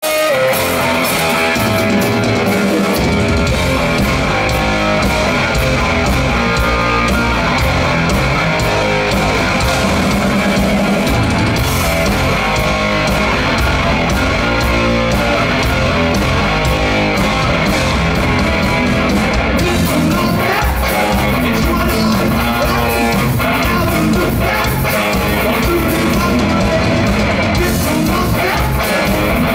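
Heavy metal band playing live: loud, continuous electric guitars with bass and drums. The low end comes in about three seconds in.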